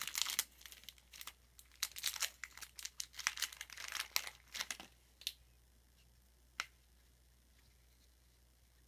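Shiny trading-card pack wrapper being torn open and crinkled as the cards are pulled out of it. The crackling stops about five seconds in, with one light tick a little later.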